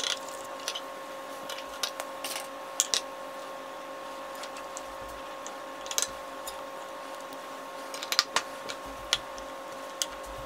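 Metal spoon clinking and scraping against small clear cups as slime is stirred and mixed, heard as scattered faint clicks over a faint steady hum.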